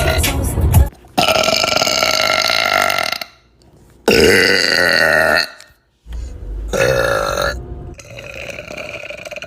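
A person burping: a run of about five long, drawn-out burps with short gaps between them, the last one quieter.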